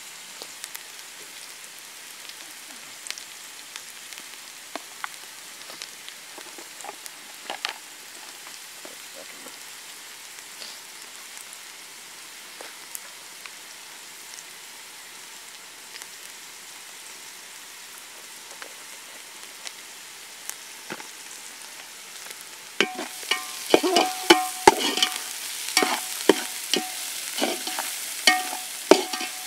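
Chopped onions and green chillies sizzling in hot oil in a metal pot: a steady hiss with scattered pops. Near the end a metal ladle starts stirring, scraping and clanking against the pot in quick, louder strokes.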